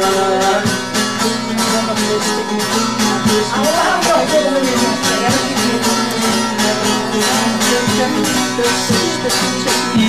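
Semah music on a bağlama, the long-necked Turkish lute, strummed in a quick, even rhythm: an instrumental passage between sung verses.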